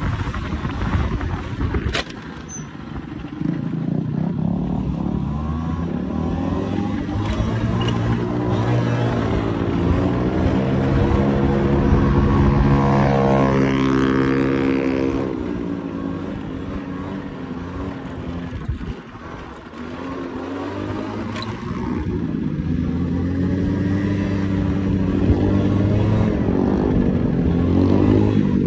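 Scooter engine running under way, its pitch climbing as it speeds up and dropping back as it slows, several times over, with a steep rise about halfway through.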